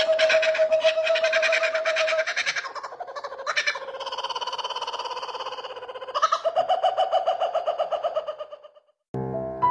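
Laughing kookaburra calling at close range: a long run of fast, rhythmic hooting notes that rises and falls. It slackens about three seconds in, picks up again sharply around six seconds, and fades out just before piano music cuts in at the very end.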